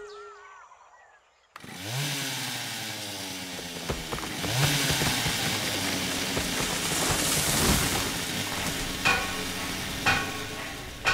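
Chainsaw starting abruptly about a second and a half in, revving up twice and then running steadily. Two short knocks come near the end.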